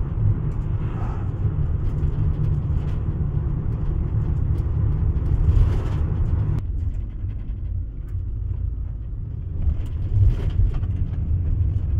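Road noise heard from inside a car's cabin while driving at about 38 mph: a steady low rumble of engine and tyres. The higher hiss of the road drops away suddenly about two-thirds of the way in, leaving mostly the low rumble.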